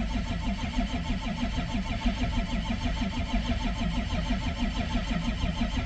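Freshly built HEUI diesel engine cranking over on the starter in a steady, even chug without catching. The engine is being cranked to build the oil pressure its HEUI injectors need before they will fire.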